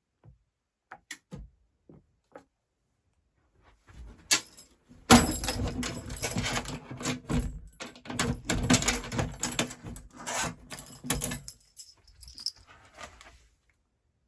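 Scattered light clicks, then about eight seconds of dense rattling and clattering with many sharp knocks, starting about four seconds in and dying away near the end.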